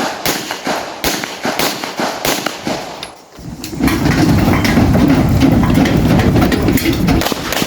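Pistol shots from several shooters on a firing line, many sharp cracks in an irregular, overlapping string. A dense low rumble rises beneath them about four seconds in.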